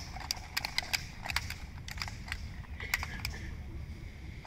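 About a dozen irregular, sharp clicks from a squad of soldiers' rifles, handled and dry-fired while they aim in a reflex shooting drill.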